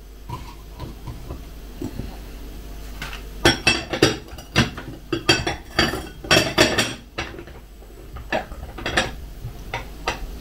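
A spoon clinking against a mug: a quick run of sharp clinks in the middle, then a few separate clinks near the end.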